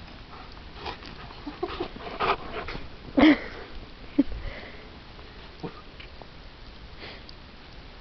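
A Bernese mountain dog sniffing in short, irregular bursts, loudest about three seconds in, then fewer and fainter.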